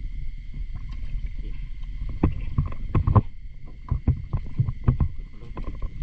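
Irregular splashes and knocks of a diver moving in the water, starting about two seconds in, over a steady low rumble and a faint, steady high whine.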